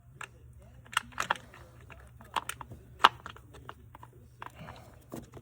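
Irregular light clicks and clacks of hand tools and plastic parts being worked on an engine's coil pack, as the 10 mm coil bolt is taken out. The loudest click comes about three seconds in.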